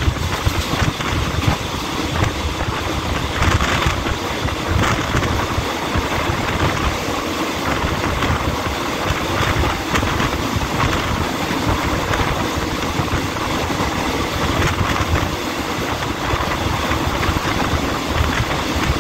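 Passenger train running along the line, heard from on board: a steady rumble of wheels on rail with a rushing noise of air.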